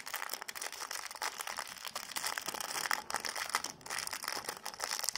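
Thin clear plastic bag crinkling and rustling as it is handled and opened, a steady run of small crackles.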